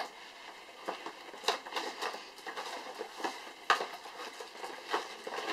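Unboxing noises: a keyboard and its packaging being handled, with scattered irregular rustles, taps and clicks, the strongest about one and a half and three and a half seconds in.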